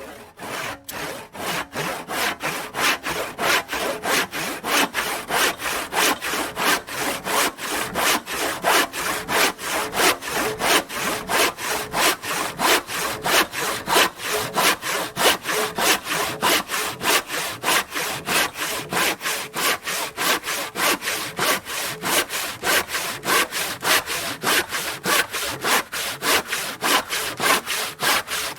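Hand saw cutting through timber in quick, even back-and-forth strokes, each stroke a rasping burst of the teeth biting the wood, keeping a steady rhythm throughout.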